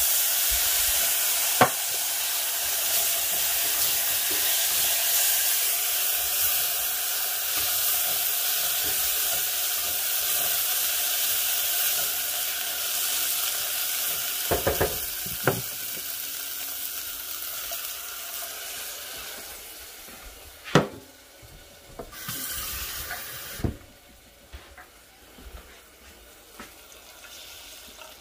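Tomato sauce sizzling in a hot saucepan of toasted rice: a loud, steady hiss that slowly dies down, with a spoon knocking and scraping against the pan now and then. A short second burst of hiss comes a little after the middle.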